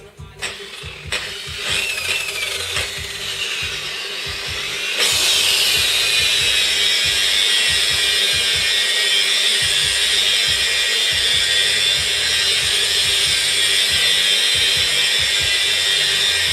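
DeWalt DWP849X variable-speed rotary polisher's electric motor spinning up with a rising whine. About five seconds in it jumps to a loud, steady, high-pitched run at high speed.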